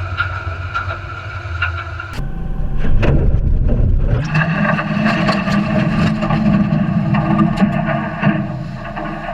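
Engine running on the water, with scattered knocks. The sound cuts abruptly about two seconds in, and from about four seconds a louder, steady engine note takes over.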